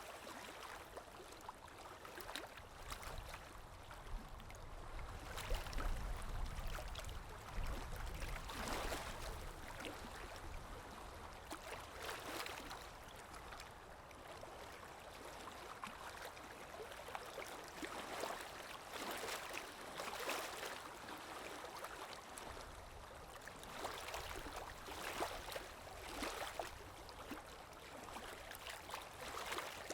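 Sea waves washing and lapping, a steady wash of water broken by irregular small splashes every second or two, with a low rumble swelling around the middle of the first third.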